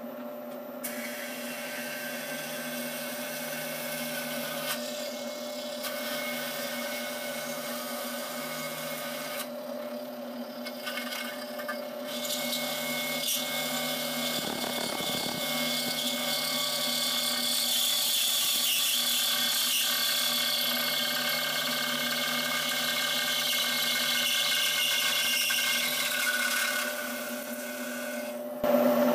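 Bridgeport vertical milling machine running, its end mill plunging through and cutting clearance notches in thin aluminium window-bar extrusions. A steady spindle hum sits under a noisy, high-pitched cutting sound that grows louder about twelve seconds in and drops away shortly before the end.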